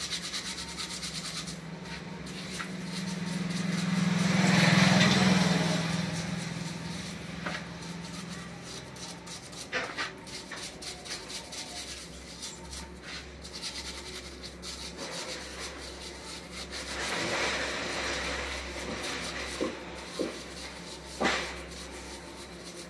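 Brush scrubbing a motorcycle carburetor part in a basin of petrol: a rapid, continuous rasping. A low hum swells and fades about four to six seconds in.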